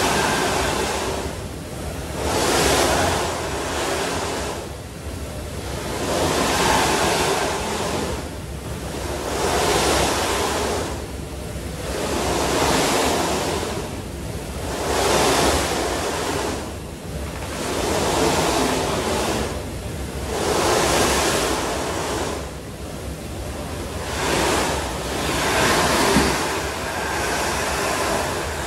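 Snowboard edge scraping and hissing across the moving carpet of an indoor revolving slope, swelling in surges every two to four seconds as the rider carves one turn after another. A steady low hum runs underneath.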